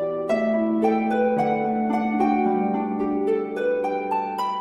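Background music of plucked string notes, each starting sharply and ringing on so that several notes overlap.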